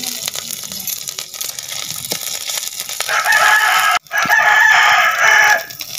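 A rooster crowing loudly about halfway through, in two parts with a short break between, over the faint sizzle of onions, chilli and garlic frying in oil in a metal kadai.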